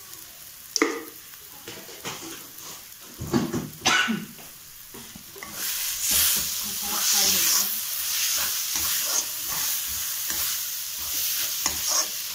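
Onion-and-spice masala sizzling as it fries in a metal kadhai while a spatula stirs it, with a few sharp scrapes of the spatula against the pan in the first four seconds. The sizzling grows louder about five and a half seconds in and stays at that level.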